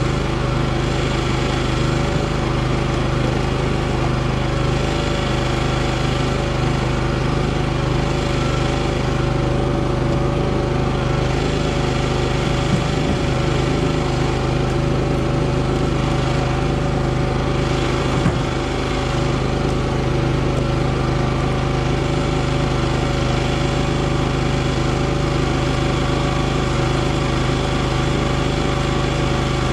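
NorthStar 37-ton log splitter's engine running steadily, with two brief knocks about five seconds apart around the middle.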